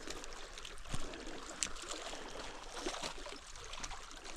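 Water lapping and trickling steadily at the lake's edge, with a few short, light clicks.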